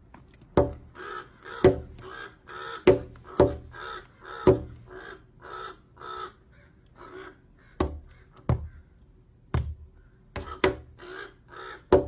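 An animal's short harsh calls, repeated about twice a second, with sharp knocks among them.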